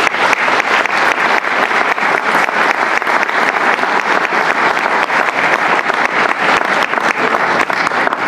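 Audience applauding: loud, steady clapping from a roomful of people.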